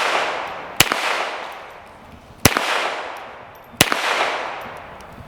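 Three shots from a Smith & Wesson Model 422 .22 LR semi-automatic pistol, spaced unevenly about a second and a half apart. Each crack is followed by a long echo that fades away over a second or more.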